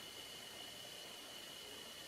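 Heavy rain falling, a steady even hiss, with a thin steady high tone running through it.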